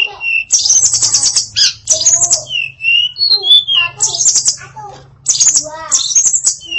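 Female tledekan (Sunda blue robin) singing a varied song, with short whistled glides alternating with fast harsh rattling trills, one phrase after another.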